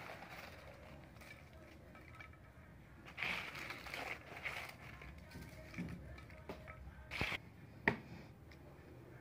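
Crisp fried papri wafers crackling and crunching as they are broken and scattered over the chaat in a glass dish, with two sharp clicks near the end.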